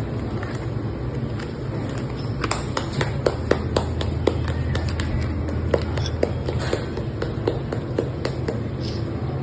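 Light taps and clicks of hands handling a K8 wireless microphone kit, several a second from about two and a half seconds in, over a steady low hum.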